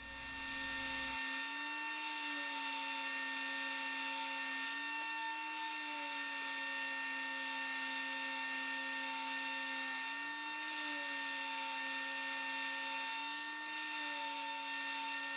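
Electric sander running on wood and epoxy coasters, its motor giving a steady whine over a sanding hiss. The pitch rises briefly and settles about four times.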